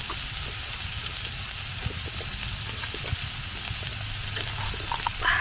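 Beef sizzling on a hot grill plate: a steady frying hiss with a few small ticks.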